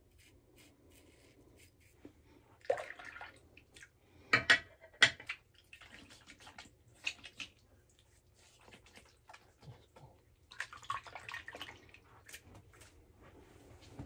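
Intermittent water splashes and a few sharp knocks, the loudest two close together about four and a half and five seconds in, with a longer stretch of splashing about eleven seconds in.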